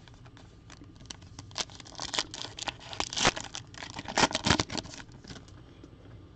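A Panini Flux trading-card pack's wrapper being torn open and crinkled by hand: a run of crackling rustles, busiest from about two to five seconds in.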